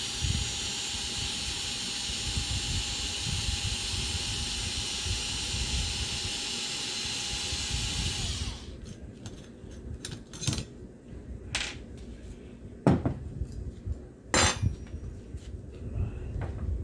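A steady hiss that cuts off suddenly about halfway through, followed by scattered clicks, taps and clinks of small hand tools and metal parts, with a few louder knocks. These are the sounds of screws being removed and parts handled while an RC truck's front end is taken apart.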